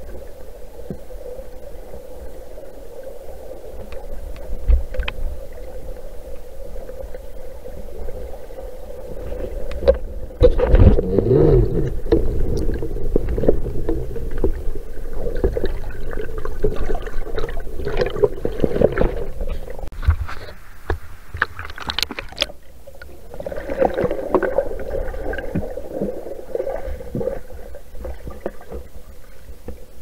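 Muffled underwater sound from a diving camera in its housing: water rushing and knocking against the casing as the diver moves among rocks, over a steady hum. It grows louder and rougher from about ten seconds in, with a few sharp knocks a little past twenty seconds.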